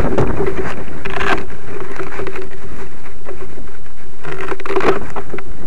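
Wind buffeting the small onboard camera's microphone in gusts, heaviest in the first second, with a steady hum underneath and a couple of brief rustles.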